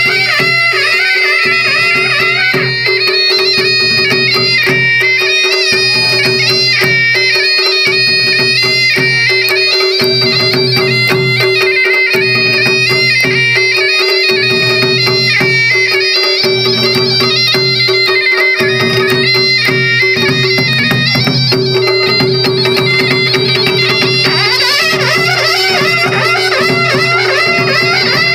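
Kumaoni folk dance music: a masakbeen (hill bagpipe) plays a wavering melody over a steady drone, while drums beat a regular pulse about once every second and a half.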